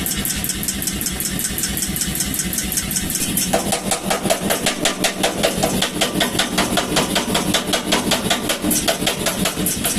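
Power hammer running and striking steadily, about five blows a second, as it forges the steel. The blows grow heavier from about three and a half seconds in.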